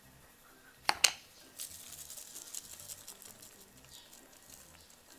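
Two sharp clicks, then a light crackling patter as dry seasoning flakes are sprinkled onto a pan of sushi-bake rice.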